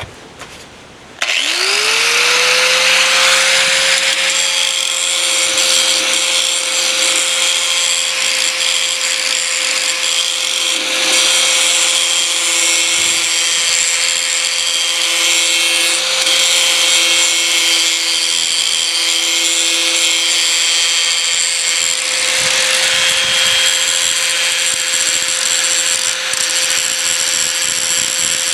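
A grinder starts about a second in, its whine rising quickly to a steady pitch, then grinds the steel edge of a Bush Hog rotary mower blade to sharpen it, the grinding hiss swelling and easing as the wheel works along the edge.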